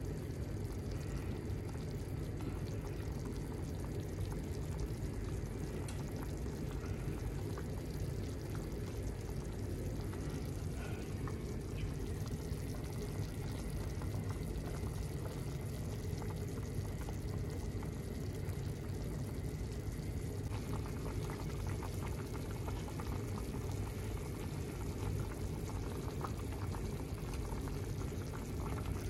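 Pork belly and vegetable soup at a rolling boil in an open pot: steady bubbling.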